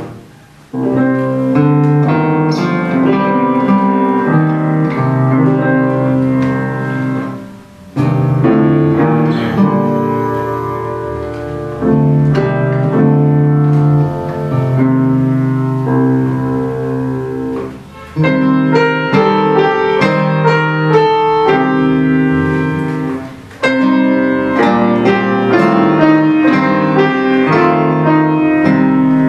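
Grand piano and nylon-string classical guitar playing a Hungarian folk-song arrangement, the piano leading, in phrases broken by short pauses.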